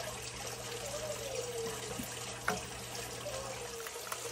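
Wire whisk stirring a thin milk sauce base in a stainless saucepan: a steady wet swishing, with one light clink about two and a half seconds in.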